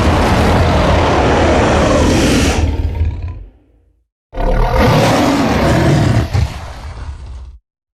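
Two long, loud designed monster roars for the Hulk. The first fades out about three and a half seconds in. The second starts about a second later, weakens toward its end and cuts off abruptly near the end.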